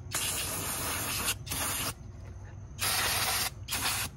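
Aerosol can of brake cleaner spraying in four hissing bursts: a long one of about a second and a short one, then after a pause of about a second two more short ones.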